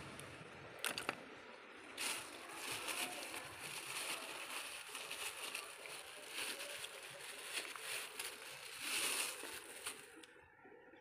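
Plastic carrier bag rustling and crinkling irregularly as a hand digs through it, with a few sharp clicks about one and two seconds in.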